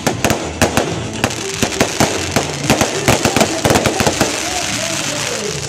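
Fireworks going off: a rapid, irregular series of sharp bangs and crackling pops, thickest around the middle, over a steady hiss.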